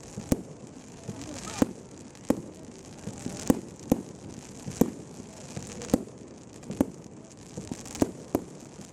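Display fireworks exploding in a quick, irregular series of sharp bangs, about one or two a second.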